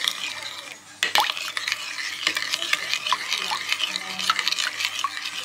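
A utensil stirring and clinking in a kitchen container: many quick small clicks over a scraping hiss, picking up about a second in.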